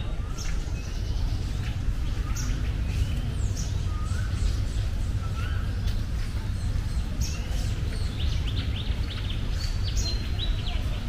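Small birds chirping and calling repeatedly in short notes, some of them quick rising whistles, over a steady low rumble.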